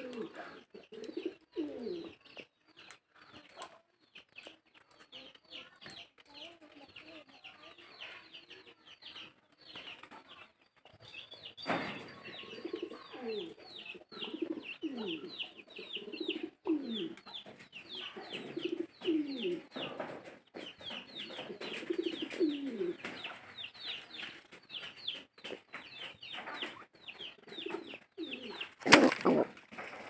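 Domestic pigeons cooing: low, curving, mostly falling coos repeated again and again, with fast high chirping going on over them. A loud knock near the end.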